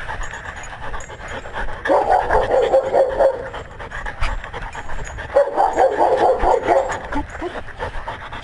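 A dog panting rapidly right at a collar-mounted camera, in two quick bouts about two seconds in and again from about five and a half seconds.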